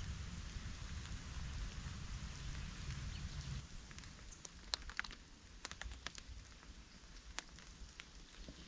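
Steady rain falling on the forest floor, a soft even hiss, with a low rumble underneath that dies away after a few seconds. From about halfway on, single drops tick sharply close by.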